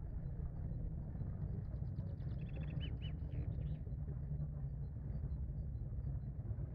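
Steady low outdoor rumble with small birds chirping: faint high chirps repeat about twice a second, and a short run of bird calls comes about two and a half seconds in.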